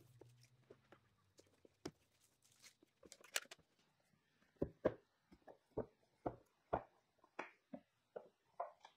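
Small wooden box trays knocking against each other and being set down on a wooden workbench: light clacks, about two a second in the second half, after faint ticks and a short rasp.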